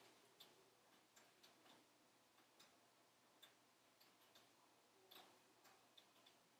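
Faint, irregular crackles and pops of logs burning in a wood stove, about a dozen over a soft background hiss.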